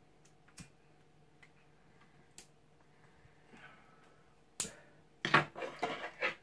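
A lighter clicks about four and a half seconds in, followed by a quick run of short puffs as a tobacco pipe is drawn on and lit. A few faint clicks come before it.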